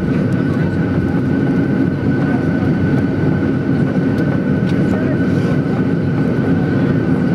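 Cabin noise of a Boeing 737-800 taxiing after landing: a steady low rumble and hum from its CFM56 engines at idle and the rolling airframe, with a thin steady whine above it.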